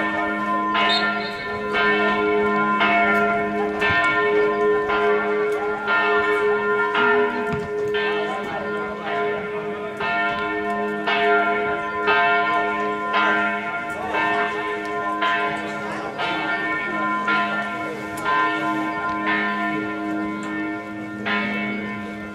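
Church bells ringing: several bells of different pitch struck in a steady, unbroken run, a stroke roughly every two-thirds of a second, each one still sounding as the next is struck.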